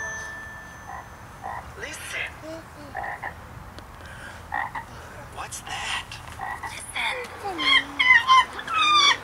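Frogs croaking in short scattered calls, joined near the end by a busier run of gliding animal and bird-like chirping calls.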